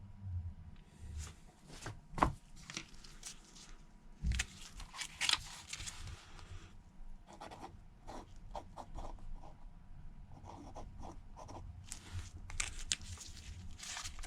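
Small handling noises of phone-repair work: scattered light taps, clicks and brief scraping or rustling as parts and small tools are handled on the bench, with a sharper tap about two seconds in and another about four seconds in.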